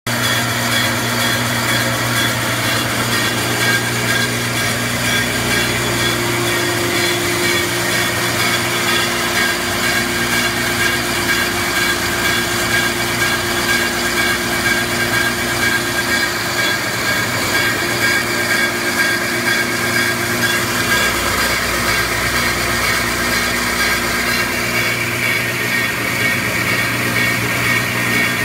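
Mezger stone lathe turning a baluster while its rotating cutting wheel grinds the profile: a steady mechanical hum with high whining tones over a continuous grinding hiss.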